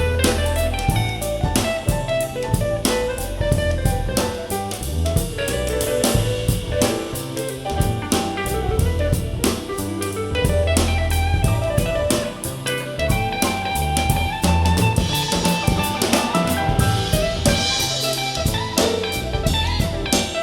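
Soul-jazz instrumental with drum kit, bass and guitar playing a steady beat, heard through an in-ear monitor.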